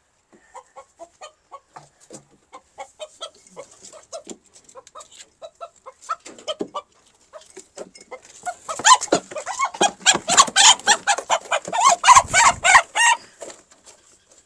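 Desi (country) rooster clucking in short repeated calls in its cage, then breaking into a loud flurry of squawks and scuffling from about nine seconds in as it is caught by hand.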